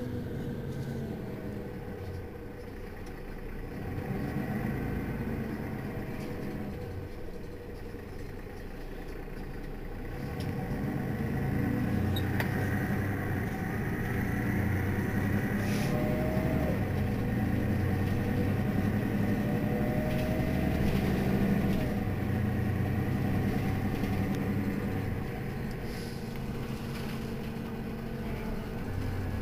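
Mercedes-Benz Citaro city bus's diesel engine idling steadily while standing, getting louder through the middle stretch and easing back near the end.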